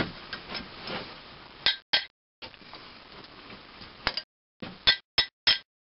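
Cast-iron engine fuel-mixer bodies clinking and knocking as they are handled and set down on a bench: a knock at the start, then several separate sharp clinks, with abrupt cuts to silence between them.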